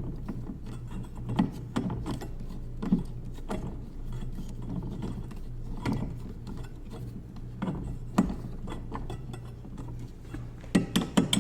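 Short screws being snugged up by hand with a screwdriver: scattered clicks and ticks, with a quicker run of clicks near the end.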